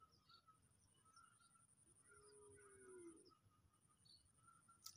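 Near silence: faint outdoor ambience with a steady high whine and, about two seconds in, one faint drawn-out animal call.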